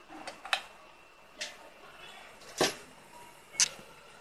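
About five separate sharp clicks and taps of metal being handled, the loudest a little past halfway, as a hand works the collet nut and cutter holder on a CNC router spindle.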